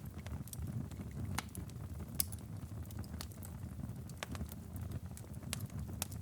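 Wood fire crackling in a fireplace: irregular sharp pops and snaps over a steady low rumble of the flames, with one louder pop about two seconds in.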